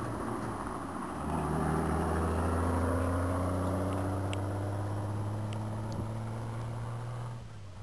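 Opel Blitz tow truck's engine running as the loaded truck drives away. A steady low drone that gets louder about a second in, then slowly fades, dropping off near the end.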